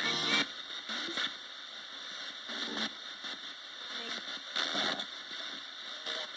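A Roberts radio sweeping across the band as a spirit box: a steady static hiss broken every second or so by short chopped snatches of broadcast sound.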